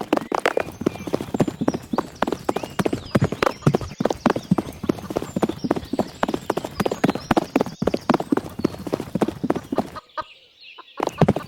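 Rapid, irregular hard knocks, several a second, with short high squeaks over them. They stop for about a second near the end.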